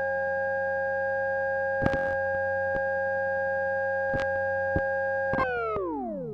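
Electromagnetic whine: a steady high electrical tone over a low hum, broken by a few sharp clicks. Near the end the whole sound slides steeply down in pitch and fades away.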